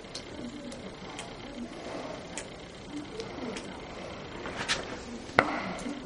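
Faint, irregular sharp ticks, then one short, loud crack about five and a half seconds in.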